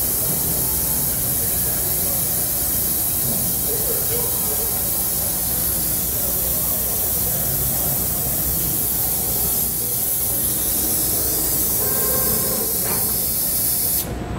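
Steady hiss of machine-shop background noise around a robot-tended press brake, with no distinct machine event standing out. The hiss cuts off abruptly near the end.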